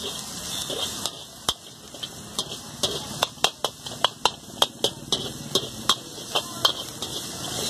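Metal ladle clanking and scraping against a large iron wok as shredded cabbage, onion and capsicum are stir-fried, over a steady sizzle. The clanks start sparse, then come quickly, about three sharp strikes a second, from about three seconds in until near the end.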